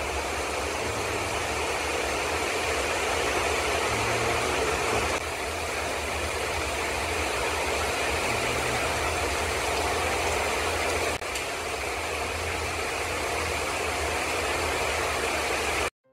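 Heavy tropical rain pouring down in gusting wind: a steady, even hiss with a low rumble underneath. It jumps in level twice, at about five and eleven seconds, and cuts off abruptly near the end.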